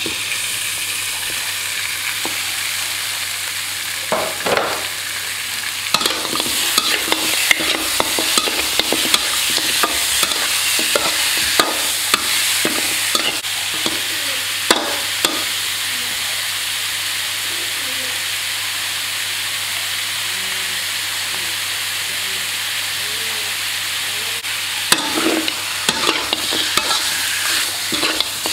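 Pork ribs sizzling steadily in hot oil as they are stir-fried with garlic and chilli, browning in the pan. A spatula clacks and scrapes against the pan in quick strokes, busiest through the middle and again near the end.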